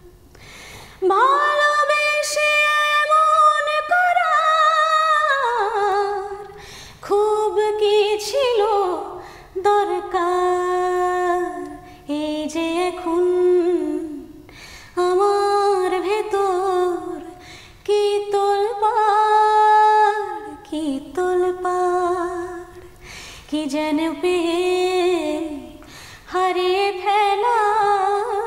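A woman singing a Bengali song unaccompanied, in long held notes that slide between pitches, phrase after phrase with short breaths between.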